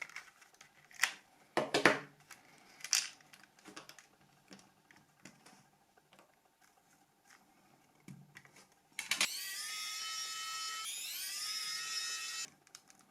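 A few clicks of small plastic parts being handled, then a small electric motor whirring for about three and a half seconds: its pitch rises as it spins up, dips and climbs again, and it cuts off suddenly.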